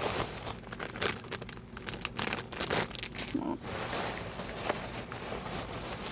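Packaging crinkling and rustling as a parcel of products is handled and opened, with many small crackles and sharper clicks throughout.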